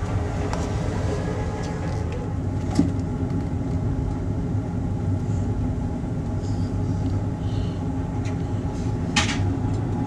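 Passenger boat's engine droning steadily, heard from inside the cabin, with a sharp click about three seconds in and another near the end.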